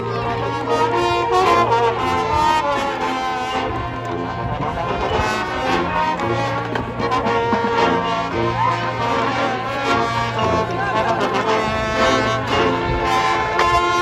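High school marching band playing its show music: the brass section carries loud sustained chords over a steady held bass note, with the chords changing every second or two.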